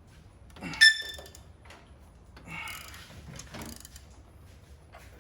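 Hand tools on metal while the second camshaft gear bolt of a MINI Cooper S N14 engine is being loosened. There is one sharp, ringing metallic clink about a second in, then softer scraping and rattling clicks.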